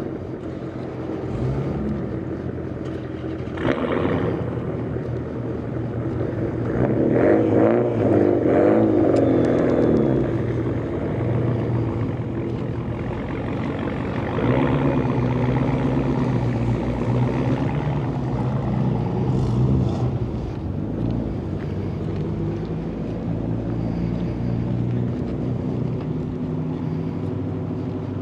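Motor vehicle traffic: engines running steadily, with vehicles passing louder about seven to ten seconds in and again around fifteen to twenty seconds in.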